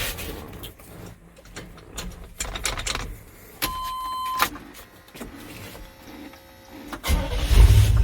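A short electronic beep about halfway through, then the 1988 Chevy K2500's carbureted engine catches and starts running about seven seconds in, firing on the fuel left sitting in the freshly rebuilt Edelbrock carburetor while the new tank's fuel is still being pulled up.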